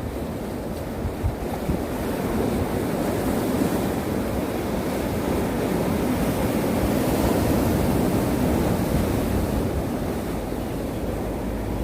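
Winter sea waves breaking and washing on the shore, the surf swelling over several seconds and easing near the end, with wind buffeting the microphone.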